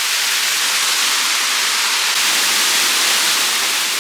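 Waterfall rushing close by: a loud, steady, even roar of falling water, strongest in the upper range.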